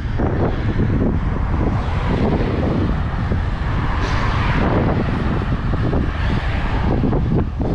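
Wind buffeting a helmet-mounted camera's microphone while cycling: a loud, fluttering low rumble, with a hiss that swells about four seconds in.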